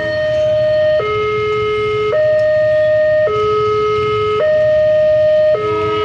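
Electronic level-crossing warning siren alternating between two tones, high and low, each held about a second: the crossing is closed for an approaching train.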